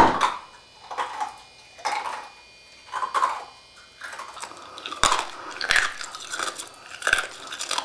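Ice being chewed with the mouth open, crunching between the teeth: single crunches about a second apart at first, then faster, denser crunching from about five seconds in.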